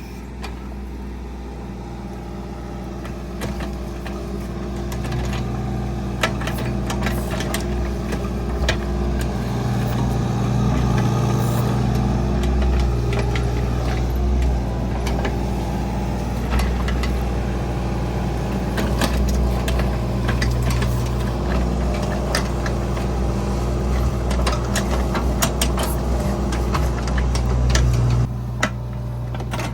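Engine of a digger running steadily, its load and revs rising and easing, with scattered knocks and clatter from the digging work.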